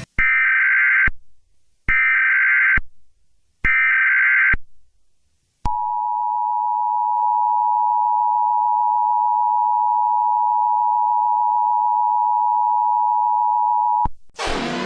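Emergency Alert System tones: three short buzzy header data bursts, then the steady two-tone attention signal held for about eight seconds. A siren-like wail starts just before the end.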